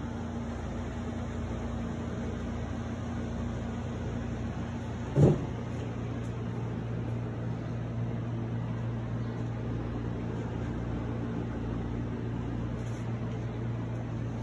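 Window air conditioner running with a steady low hum. A single short, low thump about five seconds in.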